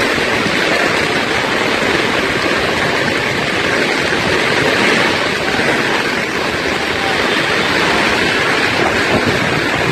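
Steady, loud rushing of heavy rain and fast-flowing floodwater.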